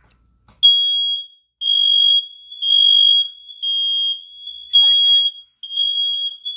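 Home smoke alarm's horn sounding, a loud high-pitched beep repeating about once a second and starting just under a second in.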